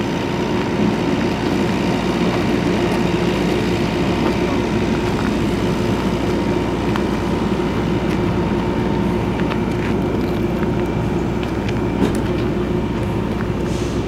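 Steady machine drone from the parked passenger train's running equipment, a constant hum over a low rumble, with one small knock about twelve seconds in.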